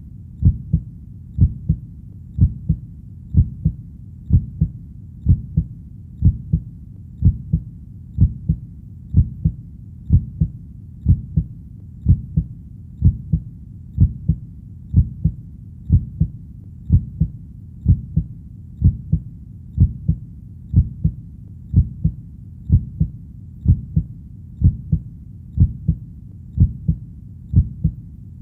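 Heartbeat: a steady, evenly paced lub-dub, each beat a low double thump, about one beat a second.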